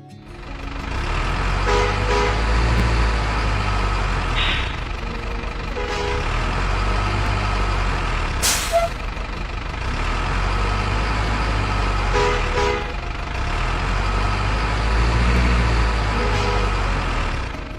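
Heavy truck engine running with a steady low rumble, and a short sharp hiss like an air-brake release about eight and a half seconds in.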